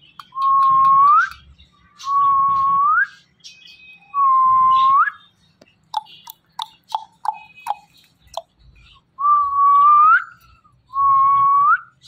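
Indian ringneck parrot whistling: five long single-pitch whistles, each about a second long with an upward flick at the end, and a run of short chirps and clicks in the middle.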